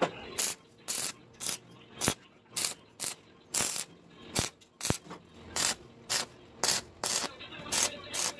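Arc welding on thin steel grill bars in short repeated arcs: a crackling burst about twice a second as the arc is struck and broken, with a few sharp clicks in between.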